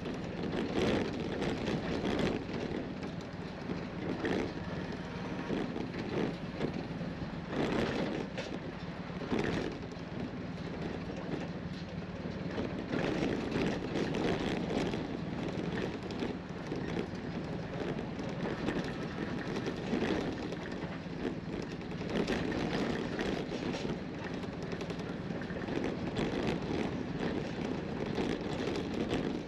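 A four-wheel drive vehicle driving on a rough unsealed track: a steady engine drone with tyre and road rumble, and scattered knocks and rattles over bumps.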